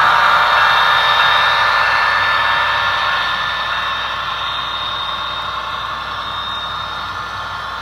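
HO-scale model diesel locomotives passing with a train of covered hoppers. A steady engine sound with a hum of several pitches runs over the rolling of the train, loudest at first and fading as the locomotives move away.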